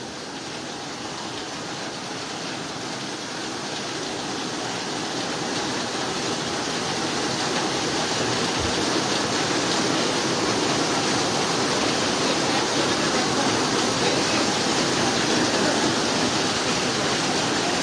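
Flash-flood water rushing down a street in a fast, churning torrent: a steady rushing noise that grows gradually louder.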